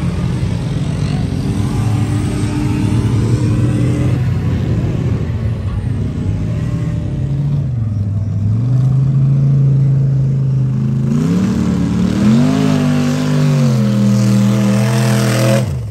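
Mud truck engine running hard at high revs, its pitch held, dipping about eight seconds in, climbing again around eleven to twelve seconds, then dropping off sharply at the end.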